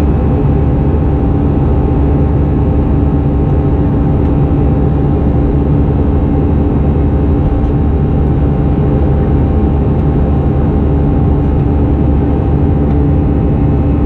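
Steady cabin drone of an Airbus A320-214 in flight, heard from a window seat: the noise of its CFM56-5B turbofan engines and the air around the fuselage, with a few steady tones running through it.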